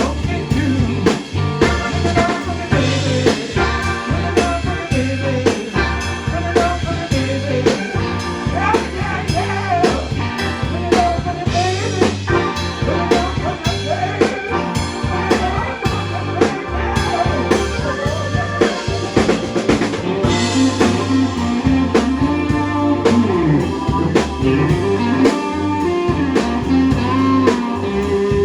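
Live electric blues band playing: a steady drum kit beat and bass under electric guitar lines with bending notes.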